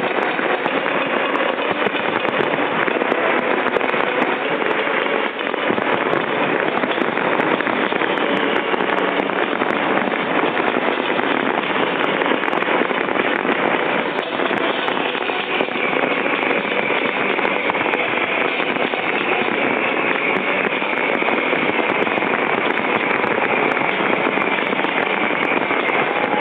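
Fireworks display: a dense, continuous barrage of bangs and crackles with no let-up.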